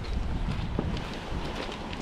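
A ground fountain firework spraying with a steady hiss and a few scattered crackles, with wind on the microphone.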